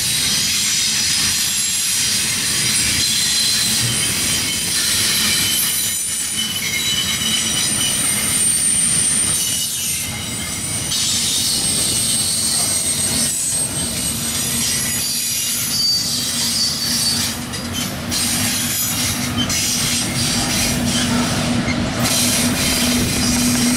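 Double-stack intermodal well cars rolling past, steel wheels squealing in several thin high tones over the rumble and clatter of the train. A steady low hum comes in during the last several seconds.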